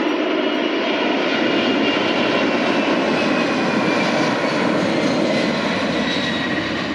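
Boeing 747 freighter's jet engines at takeoff power during the climb-out: a steady, loud rush of engine noise with a thin whine that slowly falls in pitch.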